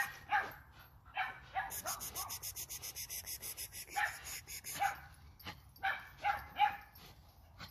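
American pit bull terrier giving short yips and whines as it tugs at a toy on a rope. Its chain rattles quickly for a few seconds in the middle.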